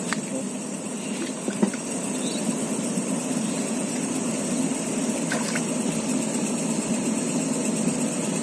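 A steady low engine-like drone, with a faint high hiss over it and a few soft knocks or splashes of water.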